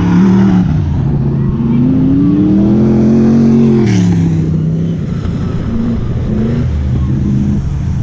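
Winged dirt-track race car's engine running under throttle, its pitch climbing as it nears and dropping sharply as it passes close by about halfway through, then carrying on a little quieter as it moves away.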